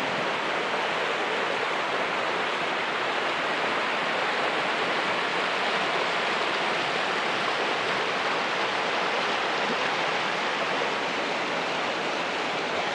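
Shallow mountain river rushing over boulders in small rapids: a steady, even noise of whitewater.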